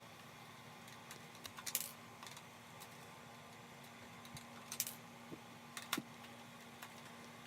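Small plastic clicks and taps from handling a DX Sclash Driver toy belt as it is taken apart. The clicks come scattered in a few short clusters over a faint steady hum.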